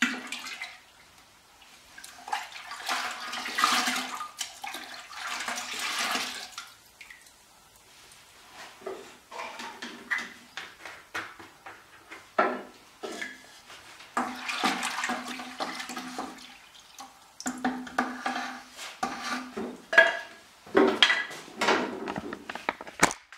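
Liquid sloshing and splashing in a plastic pail as cutting-coolant concentrate is poured into water and stirred in, in several spells, with sharp knocks of containers and a stir stick against the pail.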